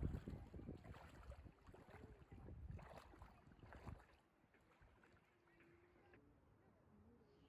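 Faint, irregular water sloshing and splashing as a person wades through a shallow river; it fades to near silence about four seconds in.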